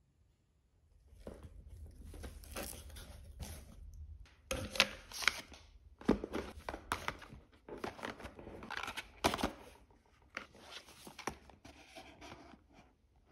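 Cardboard shipping box being opened and unpacked: irregular tearing, crinkling and rustling of cardboard and packaging, with several sharp taps and knocks as sheet-mask packets and boxes are handled and set down.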